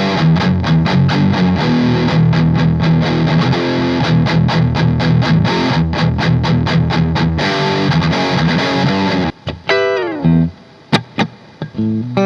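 Yamaha Pacifica electric guitar with upgraded pickups, played through distortion in fast, rhythmic strumming. About nine seconds in the strumming stops, and a few separate notes follow, with a note sliding down in pitch.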